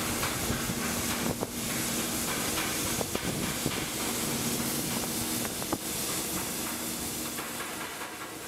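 Steady hissing industrial noise with a faint low hum and a few short clicks scattered through it.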